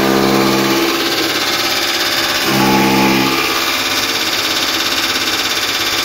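Chaff cutter running and chopping straw: a loud, dense mechanical din with a fast even pulse. Held pitched tones come in for about a second near the start and again about halfway through.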